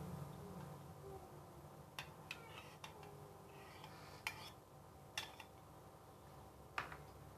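A handful of light, separate clinks and taps of kitchen utensils, about six in all, spaced a second or so apart over a low steady hum.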